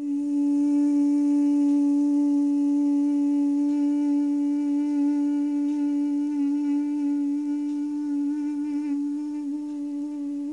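A woman's closed-mouth hum held on one long out-breath in bhramari, the yoga bumblebee breath: a single steady pitch that wavers slightly and grows a little quieter toward the end.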